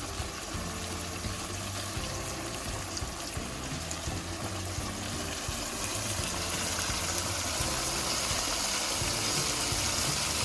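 Flour-dredged chicken pieces frying in oil in a skillet over low heat, a steady sizzle that grows slowly louder.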